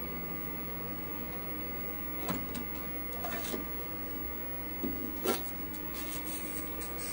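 Steady hum and whir of a running vintage IBM PC, its fan and spinning hard disk, with a few faint clicks scattered through.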